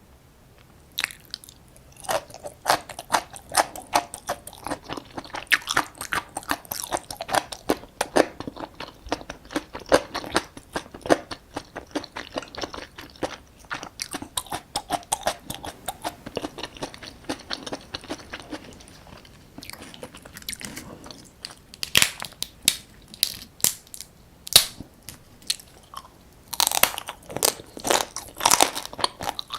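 Close-miked biting and chewing of soy-sauce-marinated raw crab (ganjang gejang): a dense run of sharp clicks and crunches that begins about a second in, eases briefly about two-thirds of the way through, then picks up again.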